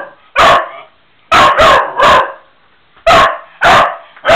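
A dog barking in play: about six short, sharp barks, some in quick pairs, with short pauses between.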